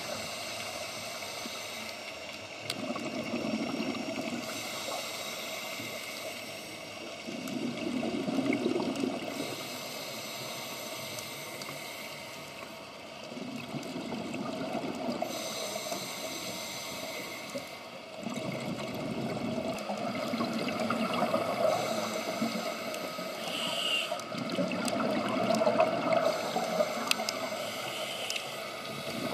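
Scuba diver breathing through a regulator underwater: a hissing inhale followed by a bubbling exhale, repeating about every five to six seconds.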